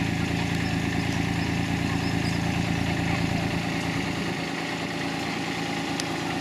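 Engine of a miniature railway locomotive running steadily at low revs, with its deepest part easing briefly about four seconds in.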